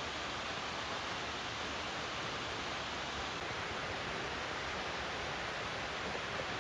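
Steady rush of a tall waterfall, an even wash of falling water.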